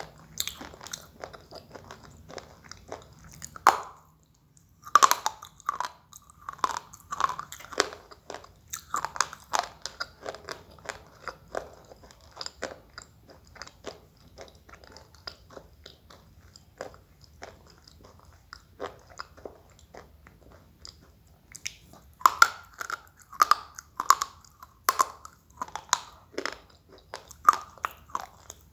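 Someone biting and chewing slate pencils close to the microphone: sharp, crisp crunches one after another, with a short pause about four seconds in and a dense run of loud bites a little after twenty seconds.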